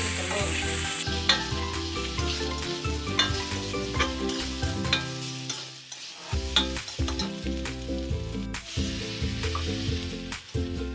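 Tempeh and egg-white cubes sizzling in oil in a metal wok while a metal spatula stirs them, with frequent clicks and scrapes of the spatula against the wok.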